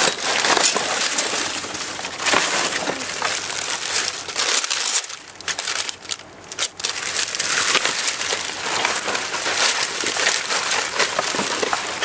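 Cellophane wrap, plastic and cardboard trash crinkling and rustling as it is rummaged through, with many small crackles; the handling eases off for a moment about halfway.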